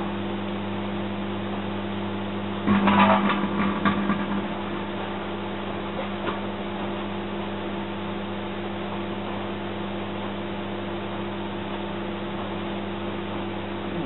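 Microwave oven running with a steady hum while a mobile phone inside it arcs and burns. A loud burst of crackling pops comes about three seconds in and lasts over a second, followed by a couple of single snaps around six seconds in.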